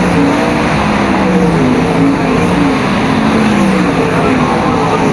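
A field of dirt-track sprintcars racing past, their V8 engines loud and rising and falling in pitch as they go through the turn.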